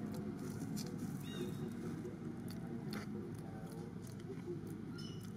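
Steady low outdoor background murmur with a few light clicks, and two short high chirps, one about a second in and one near the end.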